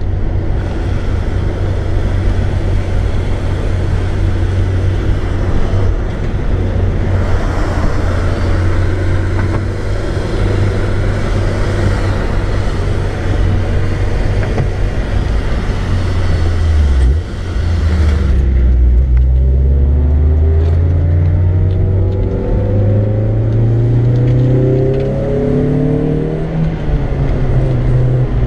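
Honda S2000's four-cylinder engine heard from inside the cabin while it is driven hard on track, with a steady hiss of wind and road noise. About two-thirds of the way through, the sound dips briefly and the hiss drops away. After that the engine note climbs steadily in pitch as the car accelerates.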